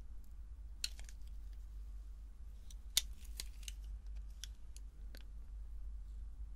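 Utility knife blade cutting and scraping into a small round item: a string of small, sharp clicks and scratches with short pauses between them, the sharpest about three seconds in.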